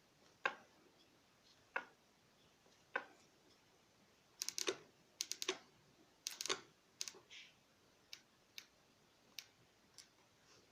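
Fox CTD Evolution rear shock knocking: sharp clicks from the compression-mode control rod rattling inside the damper, a fault. First three single knocks about a second apart, then quick clusters of clicks, then lighter ticks near the end.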